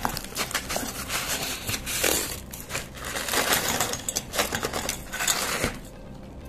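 Crinkly plastic biscuit tray rustling and crackling as rectangular biscuits are pulled out, with the biscuits clicking and clattering into an aluminium pot. The handling stops near the end.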